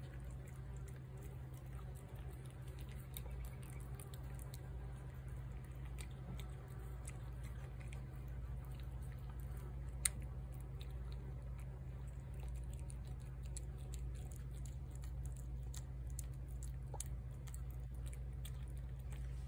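A cat chewing wet cat food off a china plate: a run of small, irregular wet clicks and smacks, with one sharper click about ten seconds in, over a steady low hum.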